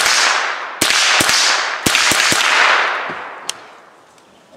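Remington 597 semi-automatic .22 Long Rifle fired in a quick string at a steel plate: a sudden sharp first shot, then several more sharp cracks about half a second apart, with a loud hiss that fades away over about four seconds.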